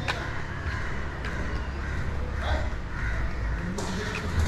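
A bird cawing in short, harsh calls over a steady low rumble of outdoor street ambience.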